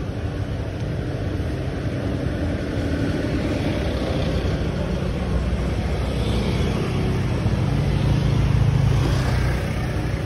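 Honda scooter engine running at low speed with street traffic around it, a steady low rumble. It grows louder for a couple of seconds near the end as another scooter pulls past close alongside.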